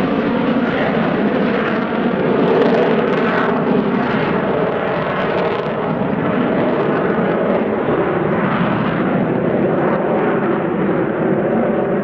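AV-8B Harrier's Rolls-Royce Pegasus turbofan running at high power as the jet climbs away, a loud, steady jet roar that slowly grows duller.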